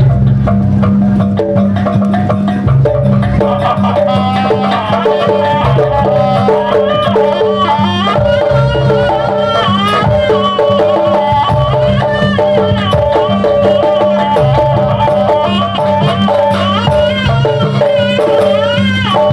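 Traditional Javanese jaranan ensemble music: drums and gamelan percussion repeat a steady low pattern under a held, wavering melody line.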